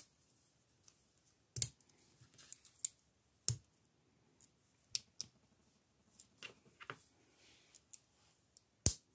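LEGO pieces being handled and pressed together: about a dozen sharp plastic clicks at irregular intervals, with quiet between them.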